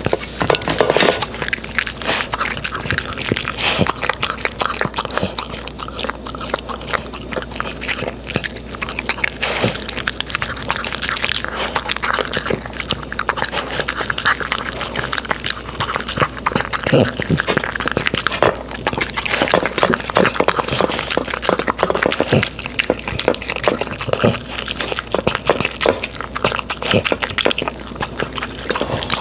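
A small dog licking and eating soft puree from a stainless-steel tray: a steady run of quick wet licks and clicks of tongue and teeth against the metal.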